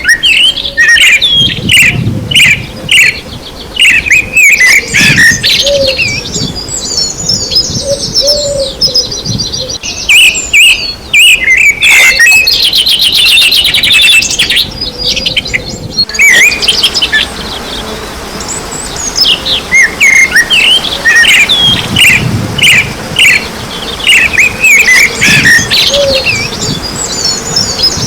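A chorus of several songbirds chirping and singing together, with many short, overlapping calls and some fast trills.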